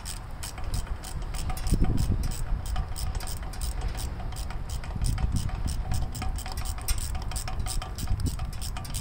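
Small irregular metal clicks and ticks as a steel fuel line and its fitting are worked by hand into a carburetor, over a steady low rumble.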